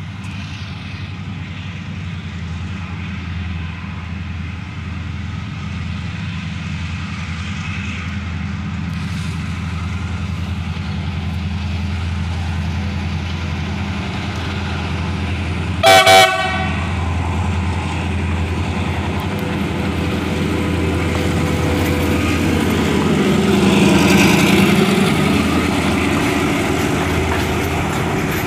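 Chinese-built diesel locomotive hauling a freight train, its engine drone growing steadily louder as it approaches, with one short horn toot about halfway through. It is loudest as the locomotive passes close by, and the container wagons start rolling past near the end.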